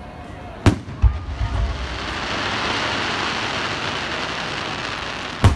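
Fireworks display: a sharp bang, a lighter thump, then several seconds of a steady dense hiss of bursting shells, and another sharp bang near the end.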